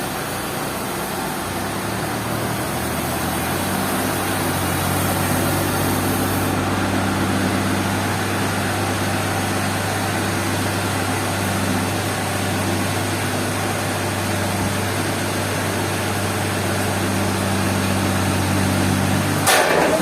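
An engine running steadily at a constant speed, with a sharp knock near the end.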